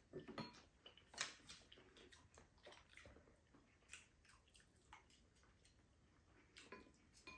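Faint eating sounds: scattered mouth smacks and chewing, with occasional light clicks of a spoon and chopsticks against bowls.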